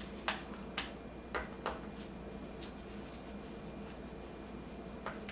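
Light clicks and ticks of a small Phillips screwdriver working a laptop screen-mounting screw: four sharp clicks in the first two seconds, then a couple more near the end.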